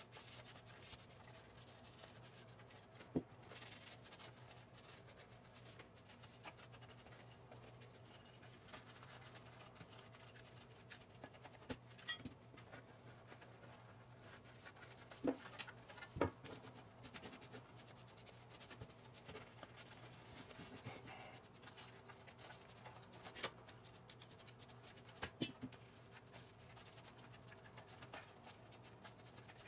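Faint cloth rubbing as gloved hands wipe bare, paint-stripped Mini Tonka toy truck parts, with a few sharp clicks and taps of the small metal parts being handled and set down.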